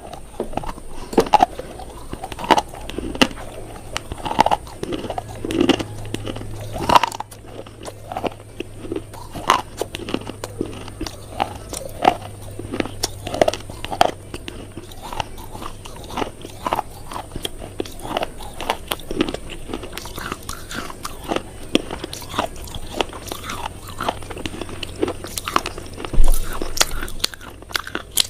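A person biting and chewing something crunchy: a long run of sharp, irregular crunches, about one or two a second, with a louder crunch near the end. A faint steady low hum lies underneath.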